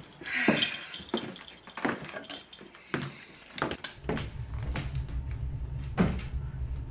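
Footsteps on a hard floor, a short knock about every half-second, followed from about four seconds in by a steady low hum with one sharper knock near the end.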